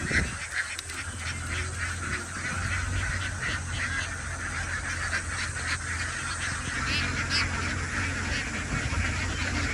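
A large flock of domestic ducks quacking continuously, many calls overlapping into a dense chatter, over a low steady hum.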